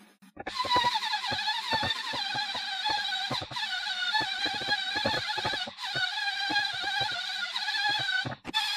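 Makita belt sander running and sanding a wooden board, a steady high whine with scattered low knocks. It starts about half a second in and breaks off briefly three times.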